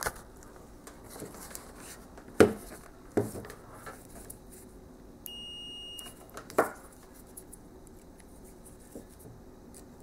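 Clamp meter's continuity beeper sounding once, a steady high beep of under a second about five seconds in, signalling a closed circuit between the probes. A few sharp knocks from the test probes and the PTO switch being handled come before and after it.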